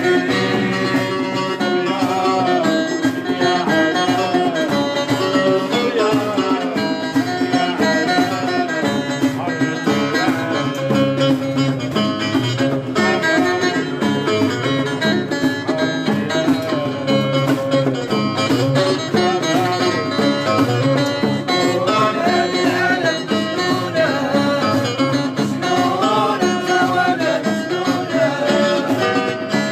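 Live traditional music played on plucked string instruments, a continuous melody over a steady beat.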